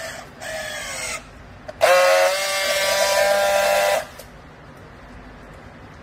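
Battery-powered handheld strapping tool on a plastic strap around a baled load. Its motor runs twice: first a short whine that falls in pitch, then, after a brief pause, a louder steady whine for about two seconds, ending with a click. This is the tool tensioning and sealing the strap.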